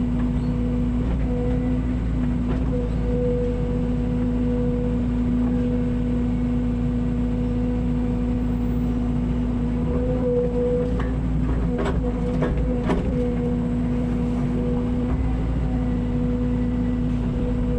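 Mini excavator engine running steadily with a constant hum, with a few sharp clanks about two thirds of the way through.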